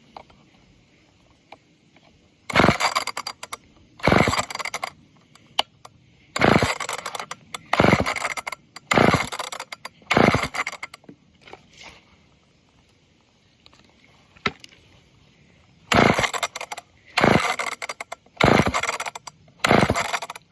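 Old chainsaw's recoil starter pulled by hand about ten times, in a run of six pulls and then four more, each pull a short burst of cord and engine turning over. The engine does not catch despite fuel sprayed into the carburetor: it won't start.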